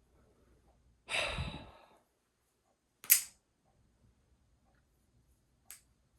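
A heavy sigh about a second in, then a single sharp clack of balisong handles closing about three seconds in, and a fainter click near the end.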